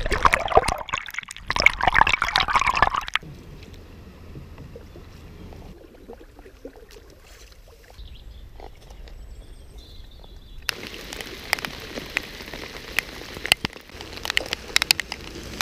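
Canoe paddle strokes and river water splashing and sloshing close to a camera mounted low on a canoe's hull for about three seconds, then quieter water lapping. About ten seconds in it cuts to steady rain hissing down, with many separate drop hits.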